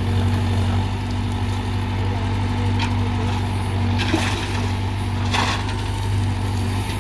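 Tractor engine running steadily, with a few short knocks about halfway through.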